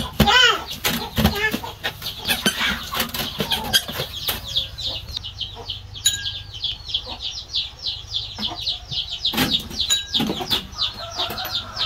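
Chicks peeping: a constant run of high, quick, falling peeps, several a second, with a few sharp knocks mixed in.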